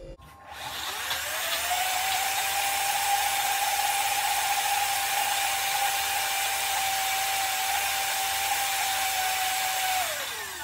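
Single-serve bullet-style blender puréeing peas, egg and feta into pancake batter. The motor spins up with a rising whine over the first two seconds, runs steadily, then winds down just before the end as the cup is released.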